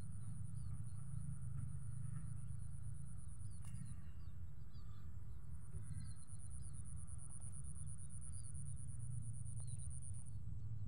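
Outdoor ambience: wind rumbling on the microphone, under a high insect trill that stops about four seconds in and starts again a second and a half later, with scattered faint bird chirps.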